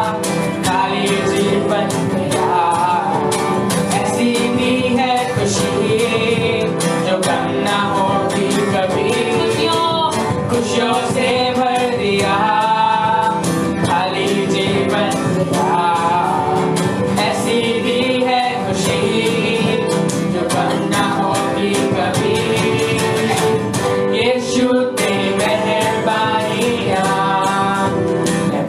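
Live worship band music: a full band with guitar plays under a melody line that bends in pitch like singing. The mix is steady and loud, with the thin, rough quality of a Facebook Live stream.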